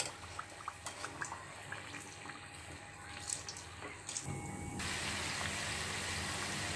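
Samosas sizzling in hot oil in an aluminium karahi, with small clicks and crackles as a wire skimmer lifts them out. About four seconds in, the frying becomes a steadier, louder hiss.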